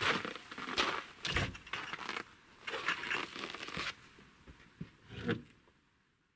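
Footsteps crunching in snow, with knocks from a wooden plank door being opened and shut. The sounds die away near the end.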